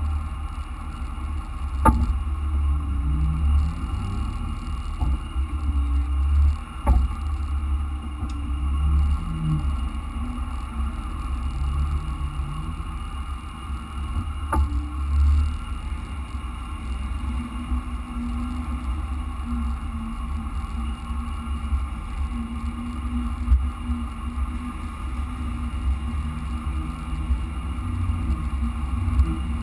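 Off-road vehicle driving along a rough dirt trail: a heavy low engine and drivetrain rumble that rises and falls with the throttle, with three sharp knocks as it jolts over bumps.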